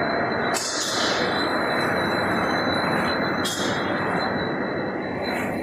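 Bugle chip production line machinery running: a dense, steady mechanical din with a constant high whine, and short hisses recurring about every two to three seconds.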